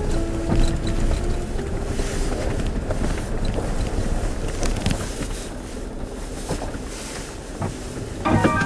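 Vehicle running with steady rumbling road noise, wind on the microphone and scattered knocks; music comes back in near the end.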